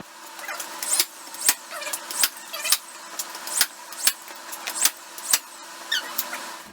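Nail gun firing into wood about eight times, its sharp shots coming in pairs about half a second apart.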